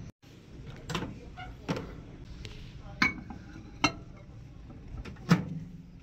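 Five separate knocks and clinks of dishware and a microwave oven being handled, the loudest about a second before the end.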